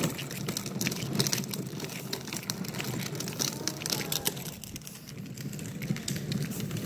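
Hard plastic wheels of a children's pull wagon rolling over asphalt, a steady rumble with many small clicks and rattles, quieter for a moment about five seconds in.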